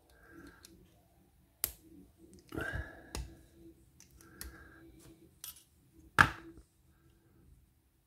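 Small metallic clicks and taps of a brass padlock lock core and a steel tool being handled in the fingers, a few scattered strikes with the sharpest about six seconds in.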